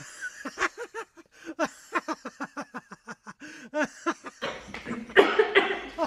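A woman giggling: a quick run of short, breathy laugh pulses, then louder laughter from about four and a half seconds in.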